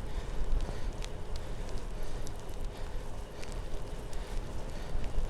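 Wind buffeting the microphone while cycling into a strong headwind in the rain, a heavy uneven rumble over a steady noise of tyres on the wet road, with scattered sharp ticks.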